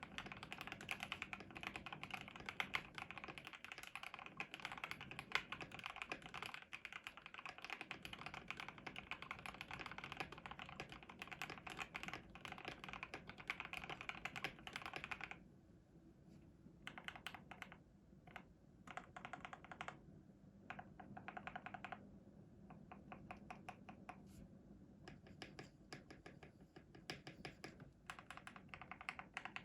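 Typing on a KBD67 Lite R4 custom mechanical keyboard. Rapid continuous keystrokes for about fifteen seconds, then shorter bursts of typing separated by brief pauses.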